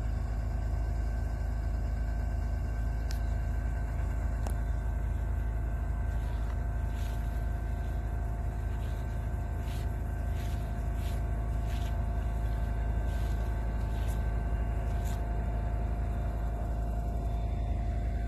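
Narrow-gauge train running slowly past: a steady rumble with a run of sharp clicks from the wheels, most of them in the middle stretch.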